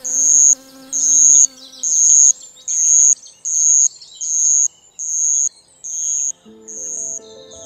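A loud, high-pitched chirp repeats about nine times, a little more than once a second, each one a bit quieter than the last. Under the first few chirps runs the buzz of a flying insect, and soft music notes come in near the end.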